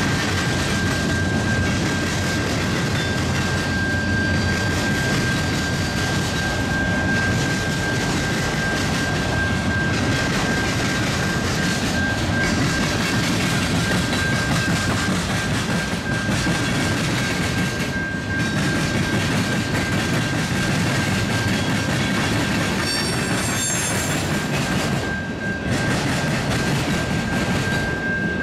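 Freight cars rolling past over the rails: a steady rumble and clatter of wheels on track, with a steady high whine over it and a brief higher squeal near the end.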